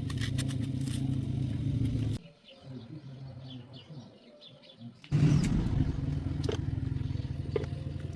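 An engine running steadily, cut off abruptly about two seconds in; birds chirp during a quieter stretch of about three seconds, and then the engine sound returns suddenly.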